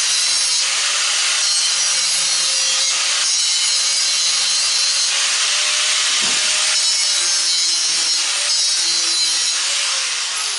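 A handheld power grinding tool cutting into the top of a chrome-plated faucet in strokes of a second or two, to bare the base metal and tell cast aluminum or die cast from plastic.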